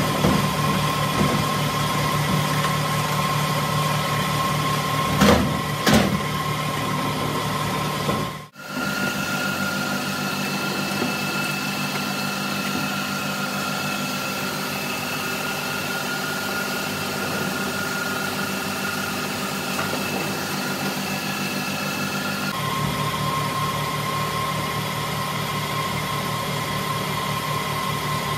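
Steady drone of a running workshop motor, with a few fixed tones over a noise floor. Two short knocks come about five and six seconds in; after about eight seconds the drone breaks off and returns with a slightly different set of tones, changing back near the end.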